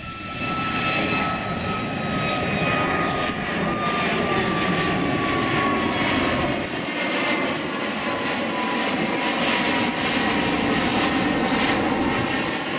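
Twin-engine jet airliner climbing out after take-off: a loud, steady engine roar that swells about half a second in, with a high whine slowly falling in pitch as it flies away.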